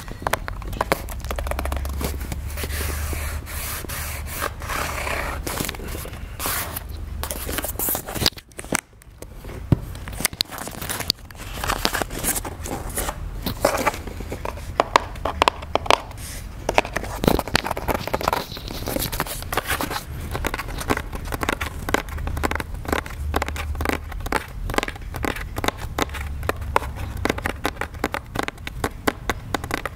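Fingers scratching, rubbing and tapping on a corrugated cardboard Amazon shipping box held close to the microphone, a dense run of scrapes and small clicks with a brief pause about eight seconds in.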